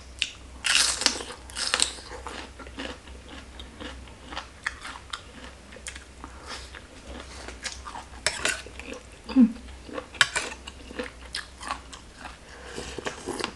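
Close-miked biting and chewing of raw bitter gourd and papaya salad: two loud crunchy bites about a second in, then steady chewing with many small wet mouth clicks.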